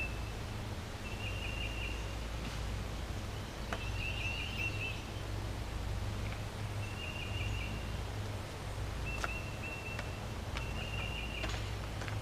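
A bird repeating a short, high trill every second or two, over a steady low rumble and a few light knocks.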